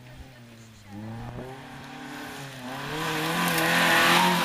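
Opel Corsa rally car's engine revving hard as it accelerates through the gears, the pitch climbing again after a shift about a second in. Engine and tyre noise swell as the car comes close, loudest near the end.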